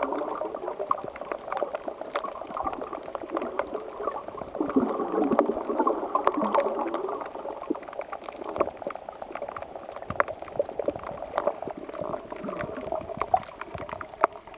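Sea surf washing and churning at the shoreline, swelling and easing over a few seconds at a time, with scattered small clicks and knocks through it. It is the rough sea of an approaching typhoon.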